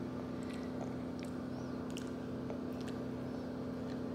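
A steady low machine hum, with scattered faint small clicks and snaps from small hands splitting open fresh pea pods.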